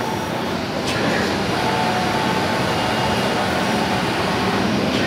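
Esko Kongsberg MultiCUT digital cutting table running: a steady mechanical noise with faint humming tones and a short high tick about a second in.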